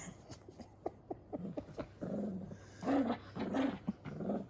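Pet dog growling in play while gripping a toy in a tug game: a few light clicks, then a string of short growls in the second half, the loudest about three seconds in.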